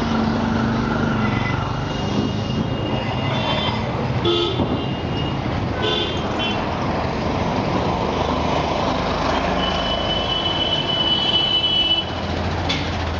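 Road traffic running steadily, with several short high-pitched toots and a longer high tone of about two seconds near the middle.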